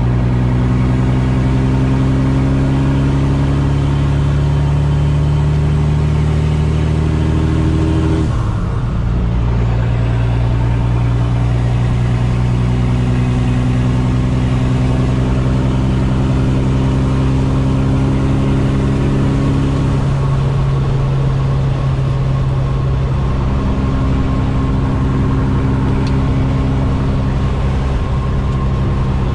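Kenworth T800's Caterpillar C15 diesel engine pulling through the gears, heard from inside the cab: the engine note climbs steadily, breaks off and drops at an upshift about eight seconds in, then climbs again, with another change in the note around twenty seconds in.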